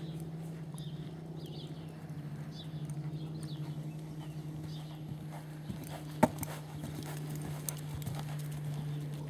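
Horse cantering on a sand arena, its hoofbeats coming in a loose rhythm, with a sharp loud knock a little past halfway. A steady low hum runs underneath.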